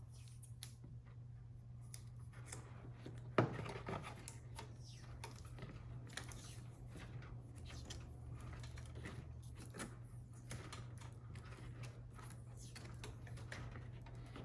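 Vinyl electrical tape being pulled off the roll and wound around a bundle of wire connectors: a run of short ripping, crackling pulls with one sharper click about three and a half seconds in, over a low steady hum.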